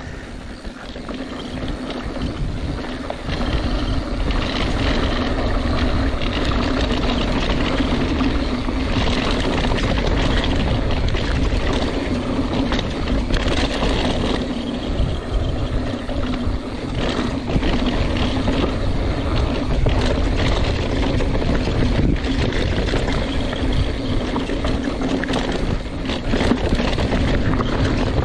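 Mountain bike descending a rough dirt trail at speed: tyres rolling over dirt and rock, with steady knocks and rattles from the bike over bumps and wind on the microphone. It gets louder about three seconds in as the bike speeds up.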